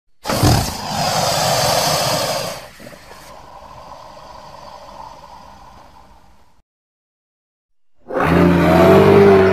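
Creature sound effects. A sudden loud, harsh roar lasts about two seconds and thins into a quieter rumble that cuts off abruptly. After a pause of about a second and a half, a low, pitched growling call begins.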